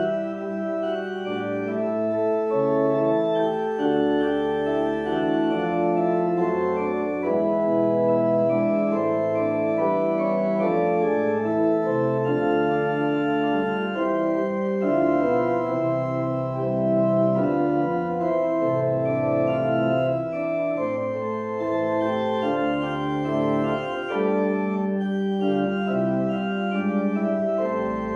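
Organ postlude: held chords that change every second or so over a moving bass line, each note sustained without dying away.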